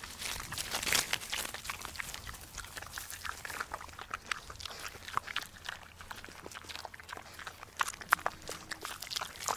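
A macaque eating: irregular small clicks and crunches of chewing and handling food.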